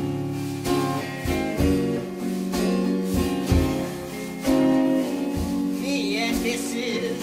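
Background music: strummed guitar chords at a steady pace, with a sung voice coming in near the end.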